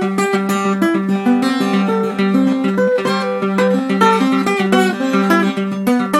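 Acoustic guitar fingerpicked in a quick banjo-style run: fast single notes moving up and down the scale, with one low note plucked again and again as a drone beneath them.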